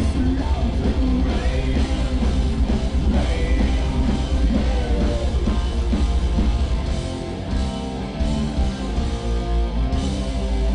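Live rock band playing loudly, with drums, electric guitars and singing over a heavy bass. The music eases a little about seven seconds in, then comes back up.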